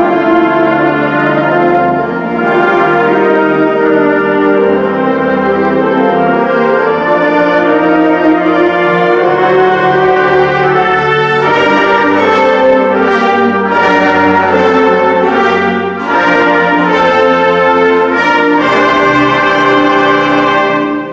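Concert band of woodwinds and brass playing full chords, with held notes in the first half and more detached, accented notes from about halfway; the playing stops at the very end.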